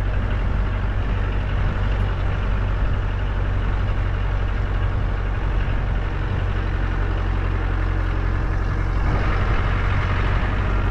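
Land Rover Defender driving along a bush track: a steady low engine drone with road and tyre noise, growing slightly louder near the end.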